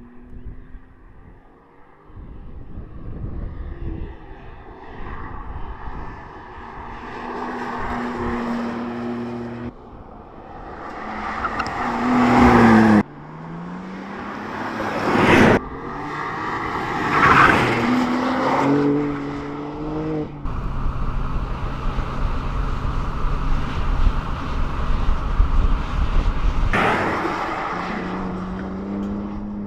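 BMW M2 G87's 3.0-litre twin-turbo straight-six engine and exhaust under hard driving, revving up and falling back several times. The sound cuts abruptly between takes a few times.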